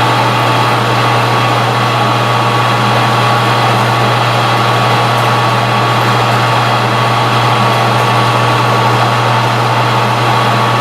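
Metal lathe running at a constant speed: a steady low motor hum with faint higher tones over a light hiss, unchanging throughout.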